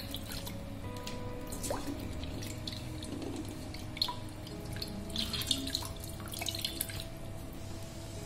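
Water splashing and dripping in a steel bowl as hands squeeze boiled bitter gourd slices in cold water, with a stream of tap water pouring in at the start. Steady background music plays underneath.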